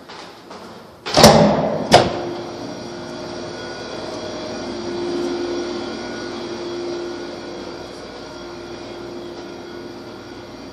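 A heavy stairwell door bangs open about a second in and claps shut just under a second later. A steady hum with a low held tone follows.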